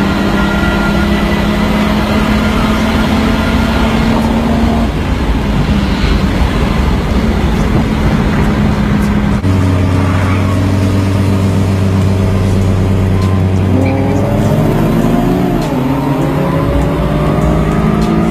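Car engine heard from inside the cabin: a steady drone under load for the first half, changing pitch about halfway, then rising in pitch several times near the end under hard acceleration.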